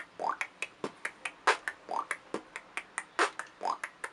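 Beatbox pattern with the tongue squeak: quick clicking hi-hats, a few louder snare-like hits, and three short squeaks that rise quickly in pitch, about one every second and three quarters. The squeak is made by flicking the tip of the tongue down from the roof of the mouth behind the front teeth.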